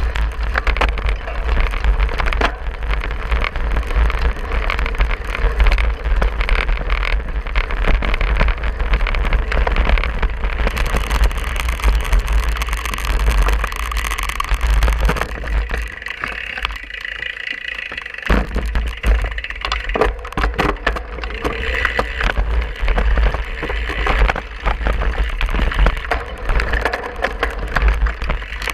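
Cyclocross bike ridden fast over bumpy grass: a steady rumble of wind on the bar-mounted camera's microphone, with the bike rattling and knocking over the rough ground. It eases briefly a little past halfway, and there is a sharp knock soon after.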